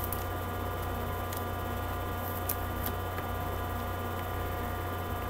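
Steady electrical hum of several tones, with a few faint soft ticks from trading cards being handled and flipped through.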